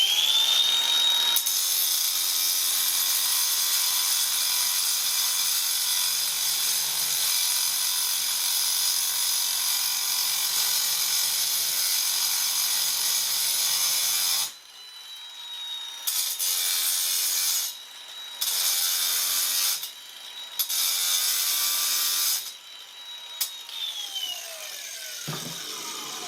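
Angle grinder with a diamond-tipped blade spinning up and cutting into lapis lazuli stone: a long continuous grind of blade on rock, then three shorter cuts as the blade is touched to the stone again and lifted off. Near the end the motor whine falls away as the grinder winds down.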